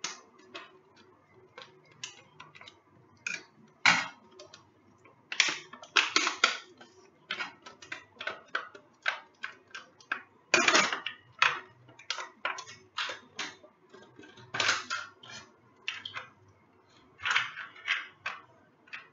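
Pen packaging being cut open and handled: scissors snipping, and the clear plastic pen case and card clicking, tapping and rustling against a glass tabletop in irregular sharp clicks, with a few louder clusters.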